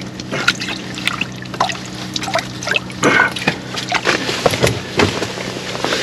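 Small irregular splashes, drips and clicks of water in an ice-fishing hole as a hooked bluegill is brought up through it, over a steady low hum.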